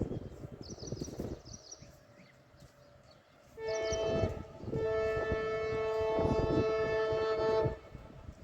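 Indian Railways train horn sounding a short blast and then a long blast of about three seconds, two tones held together.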